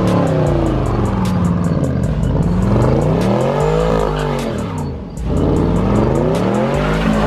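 Car engine revving up and down in long swells, with tyres spinning as the car drifts through a burnout. The revs drop briefly about five seconds in, then climb again.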